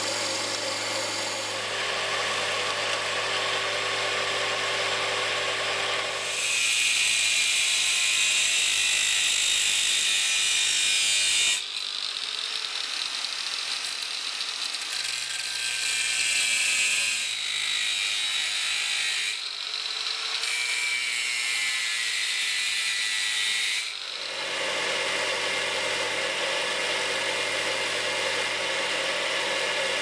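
Electric grinders working steel. A belt grinder's motor runs steadily, then grinds louder and hissier for about five seconds as metal is pressed to it. A small angle grinder's cutting disc then cuts in several stretches with short breaks, throwing sparks. Near the end a bench grinder's steady motor hum returns as the part is ground on the wheel.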